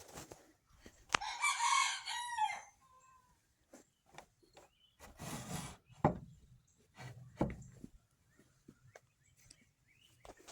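A rooster crowing once, about a second in, followed by scattered soft knocks and rustles.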